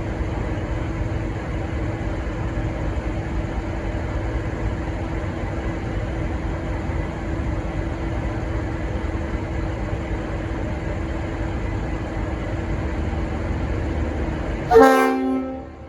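V/Line N class diesel-electric locomotive running with a steady low rumble and a held drone. Near the end it gives one short, loud blast on its Leslie RS5T horn, which cuts off suddenly.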